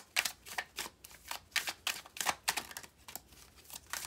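A tarot deck being shuffled by hand, the cards slapping and clicking against each other in a quick, irregular series of about three to four clicks a second.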